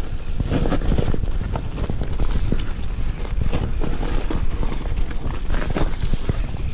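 Mountain bike rolling down a wet dirt trail: wind buffeting the microphone as a steady low rumble, with frequent clicks and rattles from the bike jolting over bumps.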